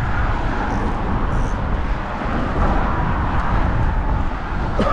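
Steady outdoor rumble of road traffic on the bridge, mixed with wind buffeting the microphone.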